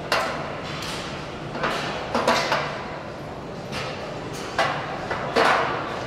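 Weight-room equipment clanking: about seven sharp metal clanks and short rattles, roughly a second apart, over a steady hum of a large room.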